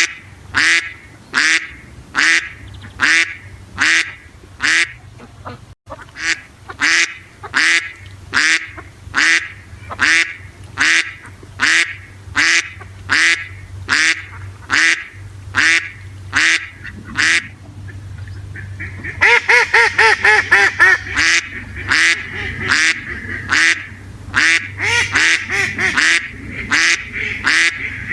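Ducks quacking: short quacks repeated at a steady pace of a little under two a second, breaking into a faster, busier run of quacking about two-thirds of the way through.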